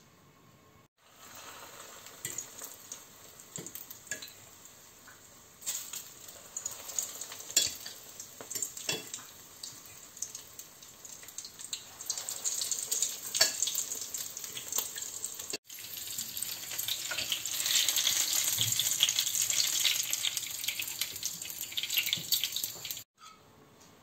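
Flour-and-egg-coated stuffed peppers sizzling as they fry in hot oil in a pan, with scattered clicks as they are turned. The sizzle grows louder in the later part and breaks off abruptly twice.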